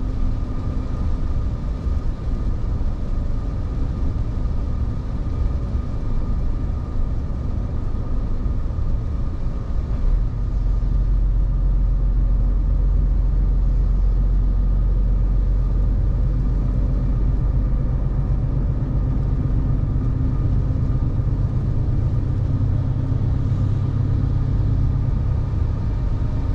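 Heavy truck's diesel engine and road noise heard from inside the cab while driving, a continuous low rumble. About ten seconds in the low rumble steps up and stays louder.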